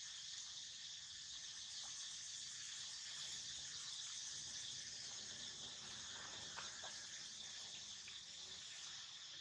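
Steady, high-pitched chorus of insects, with a few faint ticks in the middle.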